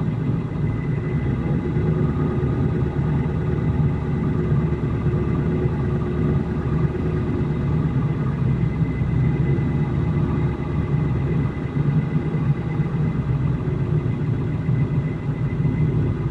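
A vehicle engine running steadily at low revs: an even, low rumble with no revving.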